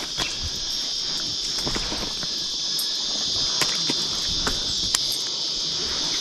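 A steady, high-pitched chorus of insects, with scattered light clicks and taps over it.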